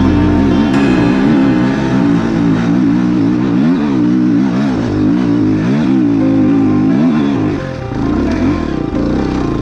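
Enduro dirt-bike engine revving up and down in quick rapid swings as the throttle is worked, with background music playing along.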